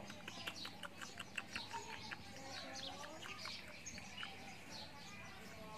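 Small birds chirping in the background: many short, scattered chirps at a low level.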